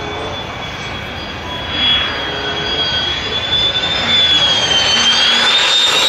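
Fighter jet engine on a low approach: a high whine over a rushing roar, growing louder about two seconds in and again from about four seconds in.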